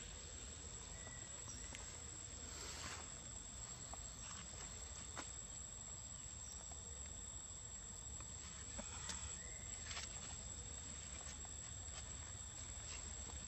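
Faint forest ambience: a steady high-pitched insect drone over a low rumble, with scattered small clicks and a couple of brief rustles.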